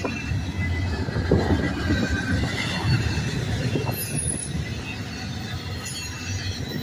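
Double-stack intermodal well cars rolling past: steel wheels rumbling along the rail, with thin high-pitched wheel squeal coming and going and a few short knocks in the first half.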